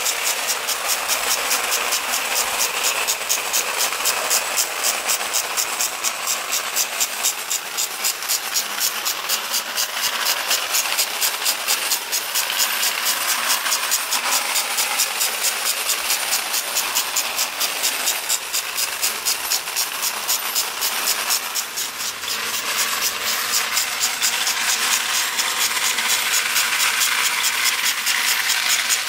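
Vintage Lionel standard gauge tinplate steam-outline locomotive and freight cars running around the track: a steady mechanical whir with rapid, even clicking.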